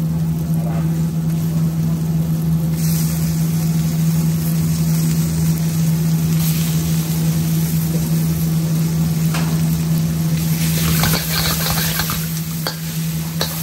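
Oil sizzling in a steel wok as chopped onions, green chillies and roasted tomatoes are stir-fried, over a steady low hum. The sizzle grows brighter a few seconds in and again near the end, when the wok flares, with a metal spoon clinking and scraping against the wok.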